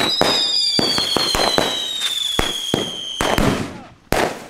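16-shot Kalimbo firework battery firing: a long, slowly falling whistle over a rapid run of sharp cracks, then a single loud bang about four seconds in.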